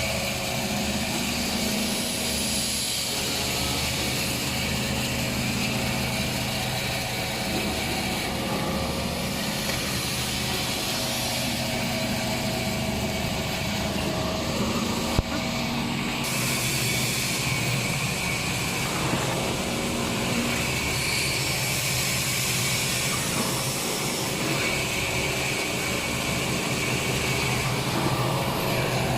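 XY-AI-300 semi-automatic maxi roll paper band saw cutting machine running with a steady mechanical drone and hum, with one sharp click about halfway through.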